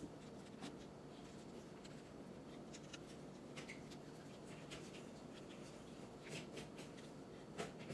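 Faint, scattered light clicks and rustles of cereal pieces being pressed by hand onto glued paper, a little busier near the end.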